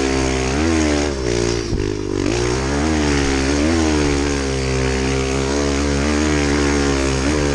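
Kawasaki KLX110 pit bike's small single-cylinder four-stroke engine being ridden hard, its pitch rising and falling over and over as the throttle is opened and rolled off, with a brief dip about two seconds in.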